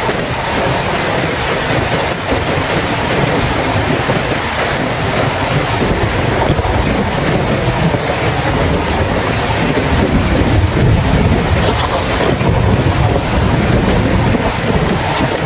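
Steady heavy rain with a low rumble of distant thunder that swells in the second half.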